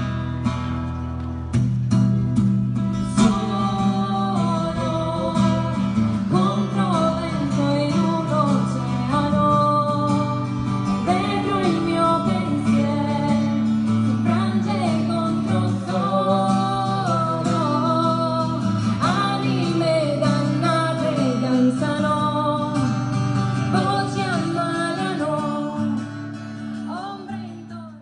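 Acoustic guitar playing with a woman singing a melody over it, as a live duo song; the sound fades out near the end.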